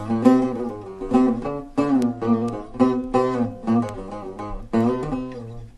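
Buzuq playing a solo taqsim: an improvised phrase of sharply plucked notes over a low ringing note. The sound dies away near the end.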